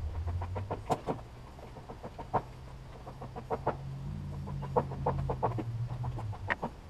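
Irregular short clicks and taps, in quick clusters, over a low steady hum.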